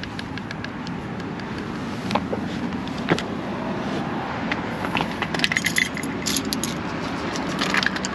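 Light metallic clinks and jangles of hand tools being handled, coming thickest in the second half, over a steady background hum.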